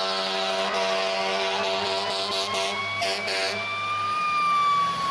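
A fire truck responding with siren and horn: steady blaring horn tones in the first half, then a siren wail that rises from about three seconds in and slowly falls near the end.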